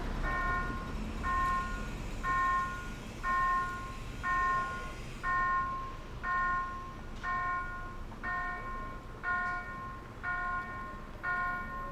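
Railroad level-crossing warning bell of an original GRS crossing installation, sounding evenly repeated half-second tones about once a second to signal an approaching train.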